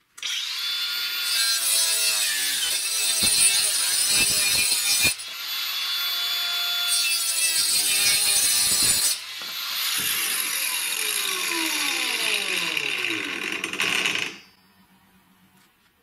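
Makita angle grinder cutting through a thin metal sheet: a loud, harsh cutting noise in stretches, with sudden changes in level about 5 and 9 seconds in. Near the end the motor's pitch falls as it winds down, and the last second and a half is nearly silent.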